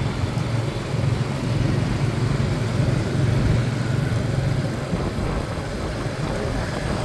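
A motor vehicle's engine running steadily, a low even hum under a haze of street noise.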